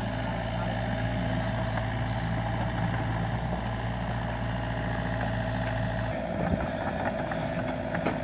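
LiuGong mini excavator's diesel engine running steadily; its low hum drops away about six seconds in, followed by a few light knocks.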